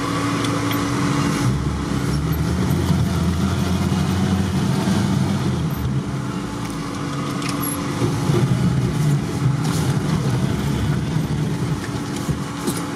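UAZ-469's engine running under load, heard from inside the cab as the vehicle pulls through snow. It pulls harder from about a second and a half in, eases off around seven seconds, then pulls again about a second later.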